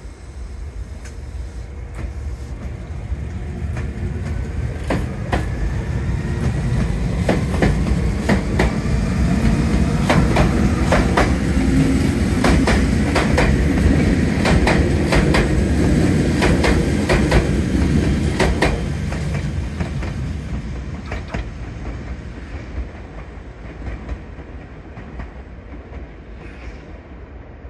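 Meitetsu 1200 series electric train pulling away from the platform: a whine rising in pitch as it accelerates, then wheels clacking over rail joints in quick groups as the cars pass close. The sound builds to its loudest mid-way and fades as the train moves off.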